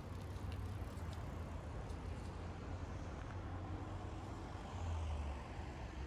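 Road traffic: a steady low rumble of passing vehicles, swelling briefly about five seconds in.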